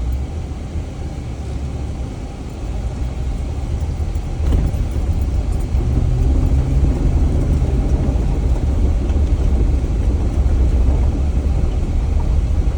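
Jeep driving along a dirt off-road trail: a steady low engine and tyre rumble that grows louder a few seconds in.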